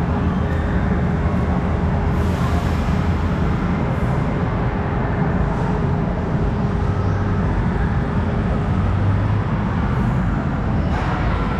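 Steady background din filling a large indoor hall, with a low rumble and a faint steady hum running through it.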